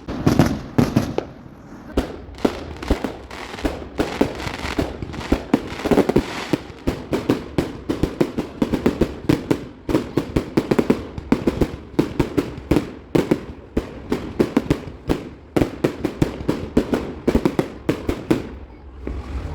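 Fireworks display going off in a continuous barrage of sharp bangs and crackling, several a second, thinning out near the end.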